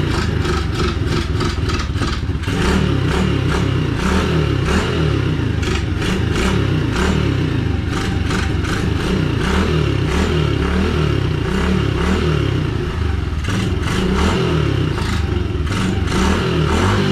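Pit bike's small single-cylinder engine running and revving up and down repeatedly, having just fired up after sitting unused for a long time.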